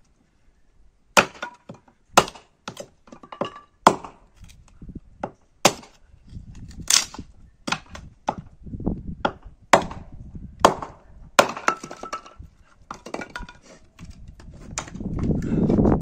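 A small hatchet splits firewood on a stump chopping block: about a dozen sharp chops and cracks, irregularly spaced, as the wood is split into thin sticks. A louder low rushing noise swells near the end.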